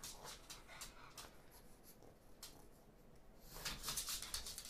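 A pug's claws clicking and scratching on a hardwood floor: scattered quick taps, with a denser run of them near the end as the dog moves.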